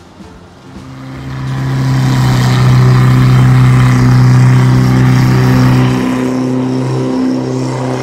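Thai long-tail boat's engine running at a steady high speed as the boat passes, loudest in the middle and easing off slightly near the end.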